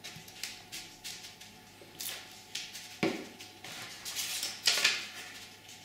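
Paper rustling and crinkling as the corners of a paper pinwheel are handled, curled in and pressed onto glue at its centre, with a glue stick worked against the paper. A sharp tap about three seconds in.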